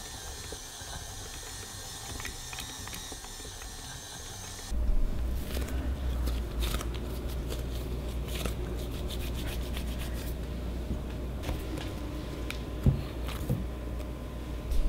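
A stand mixer's motor runs steadily with a high whine as its dough hook kneads bread dough in a glass bowl. About five seconds in, this switches abruptly to hands working the dough ball, a low rumbling with rubbing, scraping and clicking. Two sharp thumps come near the end.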